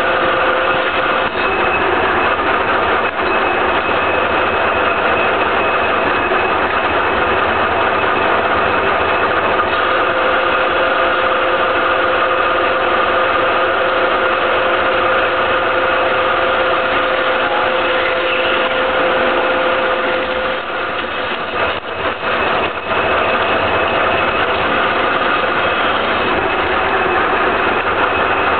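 1K62 engine lathe running at 1250 RPM with a steady gear whine, while a Sandvik tool takes a 5 mm deep cut in a medium-carbon steel (C45) shaft. One tone in the whine drops out about two-thirds of the way through, with a brief dip in loudness.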